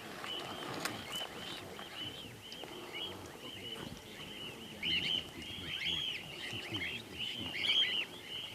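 A flock of small birds chirping, many short arched calls overlapping, growing louder about halfway through.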